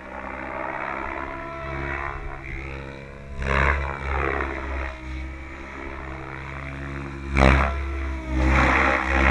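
SAB Goblin 700 electric RC helicopter in flight: a steady whine of the motor and rotor, its pitch gliding up and down as it manoeuvres. There are two short loud blade swooshes, about three and a half and seven and a half seconds in.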